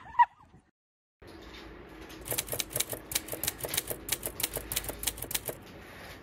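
Typewriter sound effect: a quick, uneven run of sharp key clicks lasting about three seconds, starting about two seconds in, that accompanies on-screen text being typed out letter by letter.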